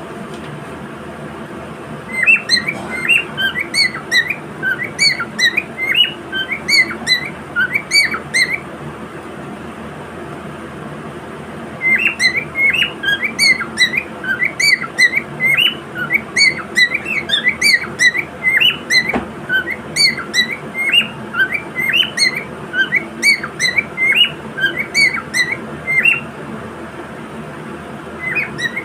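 Cockatiel chirping in quick runs of short, repeated chirps, in two long bouts with a pause of a few seconds between them, over a steady background noise.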